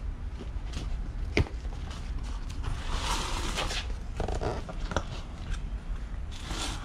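Utility knife slitting a corrugated cardboard box open, a rasping cut along the box edge, with cardboard creaking as the flap is pulled back and a sharp click about a second and a half in.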